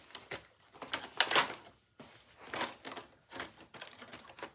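Toy monster trucks clicking and knocking against a plastic track set as they are handled and set in place: a run of irregular clatters, the loudest just over a second in.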